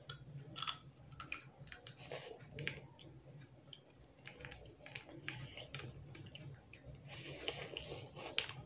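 Close-up eating sounds of fish curry and rice eaten by hand: wet chewing and lip-smacking clicks scattered throughout, with a longer, noisier wet stretch near the end.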